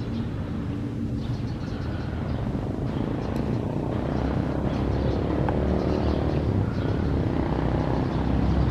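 Motor vehicle engine running close by: a steady low rumble that grows louder from about halfway through.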